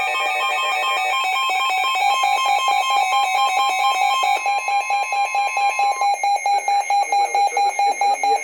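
Weather radio's electronic alert alarm sounding for a severe thunderstorm warning: a stack of shrill steady tones, pulsing in rapid beeps that become distinct at about four a second from about six seconds in.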